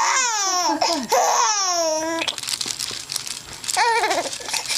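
A young animal crying in high wails that fall in pitch: two long cries, then a shorter one near the end, with crinkly rustling in between. It fusses while being dosed with sweet liquid by mouth.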